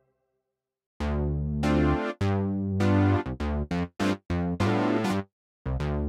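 Omnisphere's 'Polyphonic Minimoog' synth patch playing a rhythmic phrase after about a second of silence. Two longer bright chords over a heavy bass come first, then a string of short stabs, and after a brief break near the end the phrase starts again.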